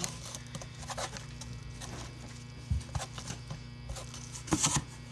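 Slime being stirred and worked with shaving cream: faint irregular sticky squishing and clicking, over a steady low hum.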